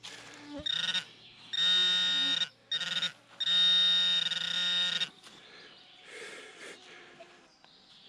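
Metal-detecting pinpointer buzzing as its tip is pushed into the soil of the dig hole, signalling metal close by: four buzzy tones of a second or so each, the second and fourth longest and loudest. It stops about five seconds in.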